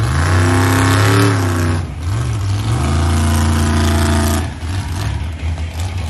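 Monster truck engine revving hard in two long surges, the first about two seconds long and the second starting about three seconds in, then dropping back to a lower, steadier run near the end.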